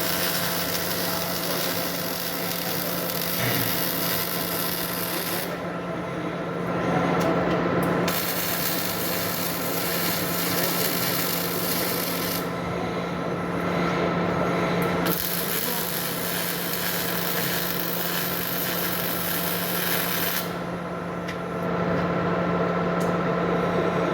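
Semi-automatic MIG welding: the arc crackles and hisses in three runs of about five seconds, stopping for a couple of seconds between beads, over a steady hum from the welding equipment.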